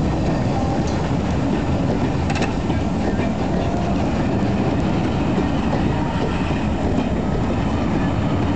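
Rake of railway passenger coaches rolling past close by: a steady rumble of wheels on the rails, with a short run of wheel clicks a little over two seconds in.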